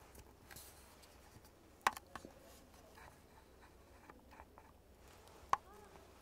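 Plastic hair-styling tool handled close to the microphone: soft small taps and rustling, with two sharp clicks nearly four seconds apart.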